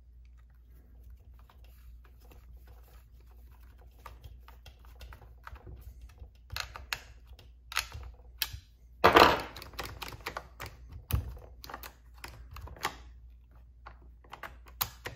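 Small metallic clicks and taps of a hand nut driver turning 8mm nuts onto the studs of a chainsaw's carburetor bracket, irregular and starting a few seconds in, with a louder clatter about nine seconds in.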